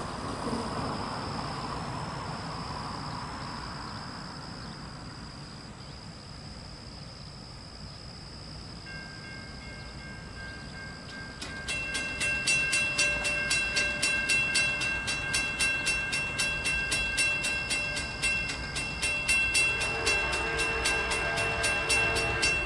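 Railroad grade-crossing bell starts ringing about halfway through, a rapid, steady clanging, and a distant diesel locomotive's horn sounds near the end as a freight train approaches.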